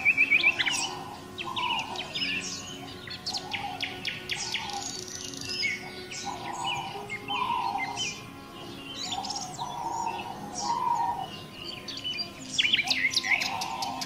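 Several wild birds chirping and singing over one another: quick high chirps and trills, with a lower call repeated every second or so underneath.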